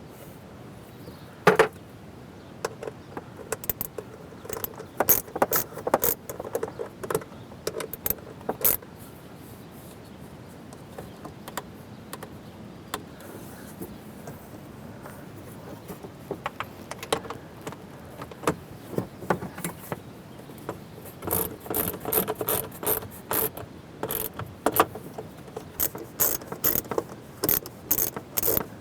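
Ratchet wrench clicking in short bursts of quick sharp clicks, tightening the bolts on a replacement RV holding-tank gate valve.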